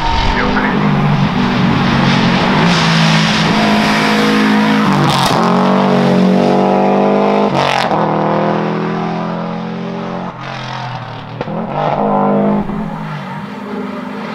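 Subaru Impreza WRX STI race car's turbocharged flat-four engine pulling hard uphill under full throttle. The pitch climbs and drops sharply at gear changes about five and eight seconds in, with sharp cracks at the shifts. It fades a little, then rises again near the end.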